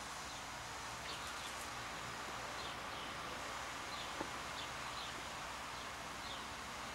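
Faint scattered bird chirps over a steady low outdoor hiss, with a single small click about four seconds in.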